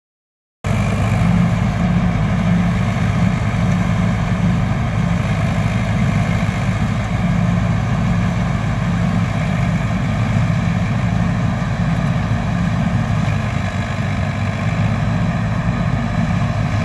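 Balkar combine harvester on a Preet tractor running steadily as it works through paddy: a continuous low engine drone with the hum of the harvesting machinery. It starts suddenly about half a second in.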